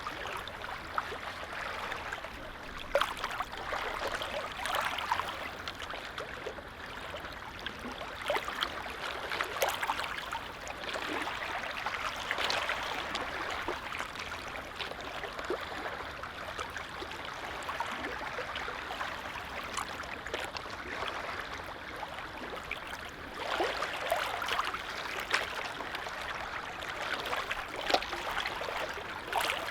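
Small waves on a calm lake lapping and trickling: a steady wash of water with many light splashes, swelling a little now and then.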